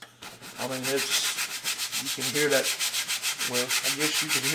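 A wide paint brush scrubbing liquid white hard into the grain of a gessoed canvas, in rapid, even back-and-forth strokes. It starts about half a second in.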